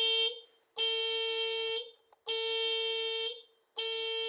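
2007 Piaggio MP3 scooter's electronic alarm sounding: one steady beep about a second long, repeating every second and a half with short gaps.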